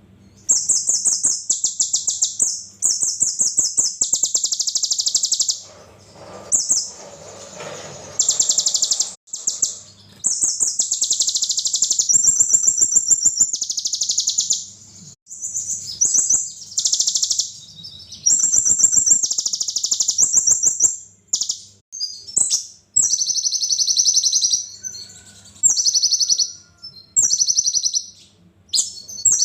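Sunbird (the 'kolibri ninja' of Indonesian bird-keepers) singing: rapid, very high-pitched trilled phrases of one to two seconds each, repeated with short pauses between them.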